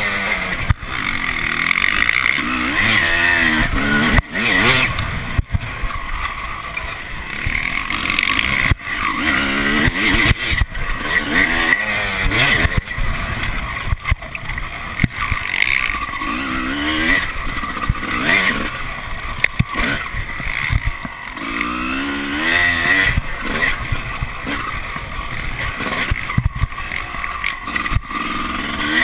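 Dirt bike engine revving up and down repeatedly while being ridden hard along a rough trail, heard close up from the rider's chest, with frequent short knocks.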